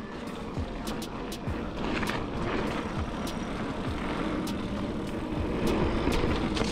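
Mountain bike rolling fast over dirt singletrack: tyre and rattle noise, with background music, a lo-fi hip-hop beat, playing over it.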